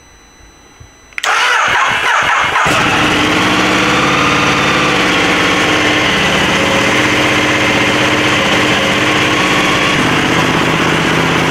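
2015 Ducati Multistrada's L-twin engine started on a fresh battery: the starter cranks briefly about a second in, the engine catches right away and settles into a steady idle. It starts right up, with strong cranking from the new battery.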